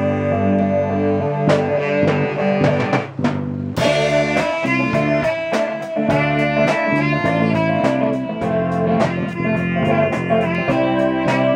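Live band jamming: a saxophone playing long held notes over electric guitars, with a steady beat of sharp percussive hits.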